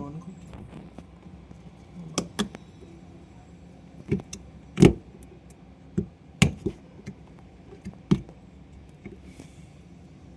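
Scattered sharp clicks and knocks of dishwasher parts being handled during the pump and heater assembly work, about eight of them with the loudest near the middle, over a faint steady low hum.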